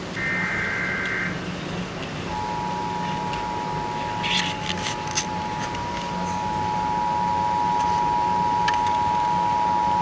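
Emergency Alert System SAME header: a shrill burst of warbling data tones that ends about a second in. About two seconds in, the EAS two-tone attention signal starts, two steady tones sounding together, and it holds to the end.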